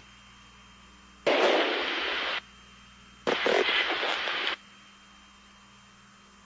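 Two bursts of static hiss, each a little over a second long, cutting in and out abruptly like a communication channel opening and closing, over a faint steady low hum.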